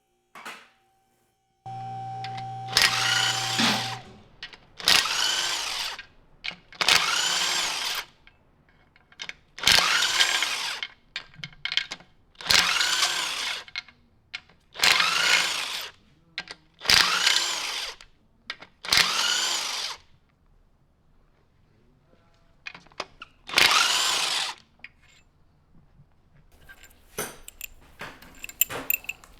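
Handheld electric drill-type power tool run in about nine short bursts of roughly a second each, its speed rising and falling with each trigger pull, as fasteners are spun out during an engine teardown. Light metal clinks near the end.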